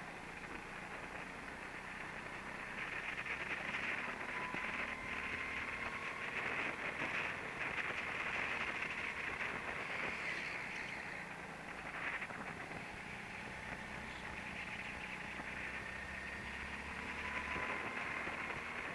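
Indoor racing kart driven at speed, picked up by an onboard camera: a steady muffled hiss and rumble, with a faint motor whine that rises in pitch about four seconds in and again near the end as the kart accelerates.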